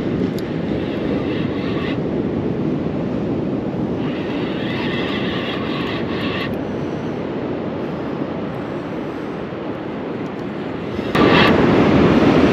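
Spinning reel being cranked to retrieve a line, its gears whirring in two spells, over a steady rumble of wind and surf on the microphone; the rumble gets louder about eleven seconds in.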